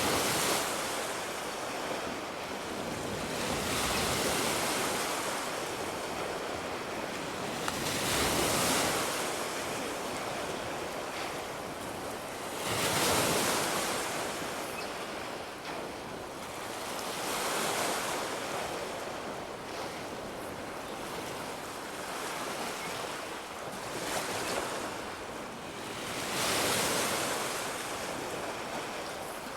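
Ocean surf breaking and washing up a beach, one wave after another, swelling about every four to five seconds.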